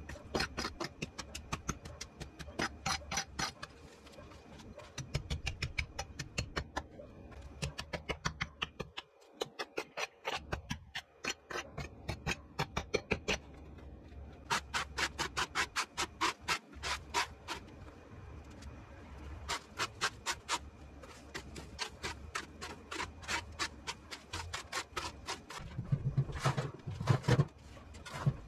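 A hand weeding tool and a leaf rake scraping through dry soil and garden debris in quick, repeated strokes, with a few louder knocks near the end.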